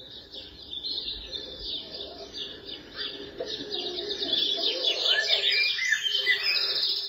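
Birdsong nature-sound alarm from a Blonbar lamp alarm clock: many quick overlapping chirps and tweets, growing gradually louder as a gentle wake-up alarm.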